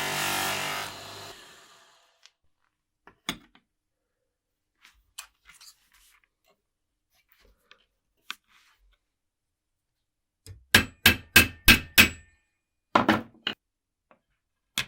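Background music fades out within the first second or so. Faint clicks of handled parts follow, then a quick run of five sharp knocks, about three a second, and a few more knocks after it, as from hand tools at a workbench.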